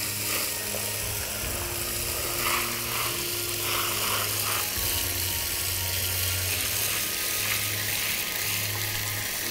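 Steady hiss of water spraying from a hand-held hose nozzle onto trays of potted hydrangea cuttings, a generous watering so the water soaks in.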